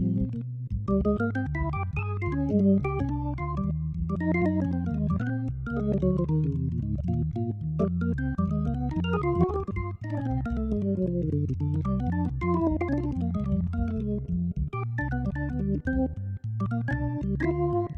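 Hammond XK-5 drawbar organ playing jazz: quick runs of single notes rising and falling up high over a low bass line that moves note by note.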